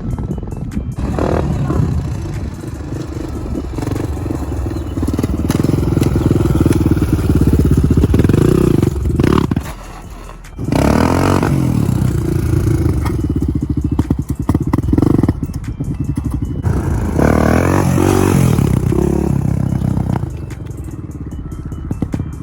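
Honda TRX400EX quad's single-cylinder four-stroke engine revving hard and falling back again and again during wheelie runs. About ten seconds in it drops off briefly, then climbs again.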